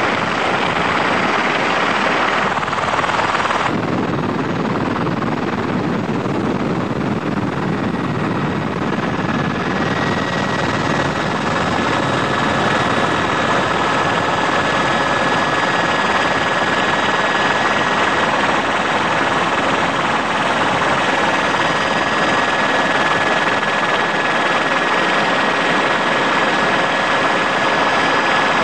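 Helicopter running steadily, heard from inside the cabin as a loud, even engine and rotor noise. Its tone shifts about four seconds in, and a faint steady whine joins it from about ten seconds in.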